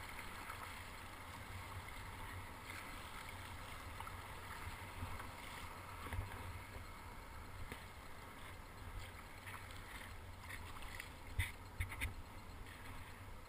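Water sloshing and splashing around a paddled sit-on-top kayak, over a steady low rumble. A cluster of sharp splashes and knocks comes near the end.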